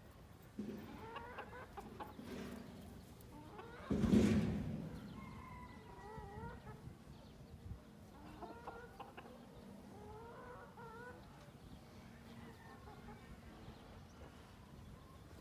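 Chickens clucking, a rooster and hens giving short, repeated calls throughout, with one much louder, harsh burst about four seconds in that fades over about a second.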